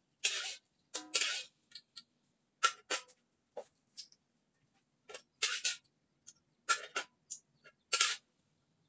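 Metal ladle scraping and tapping against the inside of an empty wok in a series of short, irregular strokes.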